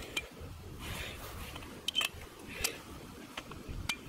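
Cylinder of a homemade .410 shotgun revolver being turned and loaded by hand: several sharp metallic clicks at irregular intervals, with handling rustle between them.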